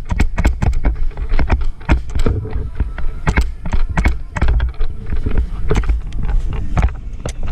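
Irregular sharp clacks and knocks, several a second, of airsoft guns firing and BBs hitting hard surfaces, over a low rumble of movement on the body-worn camera.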